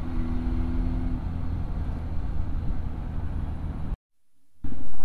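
Kawasaki Z900's inline-four engine running under way, mixed with steady wind rush on the handlebar-mounted camera. Near four seconds the sound cuts out for about half a second, then the engine comes back louder.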